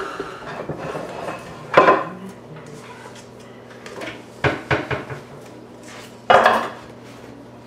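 Stainless steel stand-mixer bowl clanking and knocking against a wooden board as kneaded dough is tipped out of it. There is a loud ringing clank about two seconds in, a quick cluster of knocks around four and a half seconds, and another loud clank a little after six seconds.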